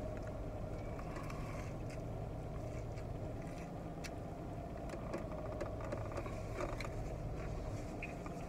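Steady low hum inside a car's cabin, with a few faint clicks and smacks of a man chewing a mouthful of fried chicken sandwich.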